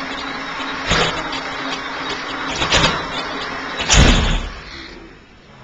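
Porsche 917's flat-twelve engine being cranked over on the starter, with short loud bursts as it tries to fire, the loudest and deepest about four seconds in, then fading.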